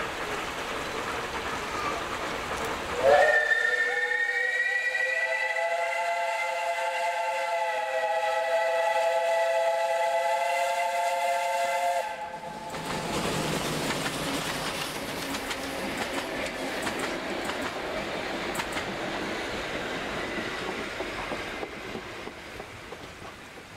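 Harz narrow-gauge steam locomotive sounds its steam whistle about three seconds in: one long blast of several notes at once, held for about nine seconds, which stops sharply. The train's noise and the rumble of its carriages go on as it passes, then fade near the end.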